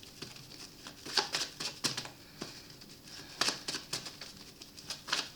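Tarot cards being handled: soft, irregular clicks and rustles of card stock, a dozen or so light snaps spread through the pause.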